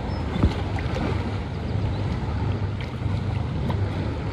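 Wind rumbling on the microphone over small waves lapping around a wading angler's legs, with a short splash about half a second in as the hooked largemouth bass thrashes at the surface.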